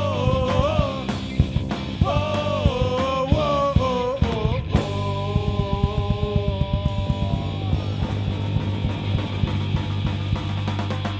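Punk rock band playing live: bending guitar lines over drums and bass, then a held chord ringing out from about five seconds in while the drumming thins toward the end.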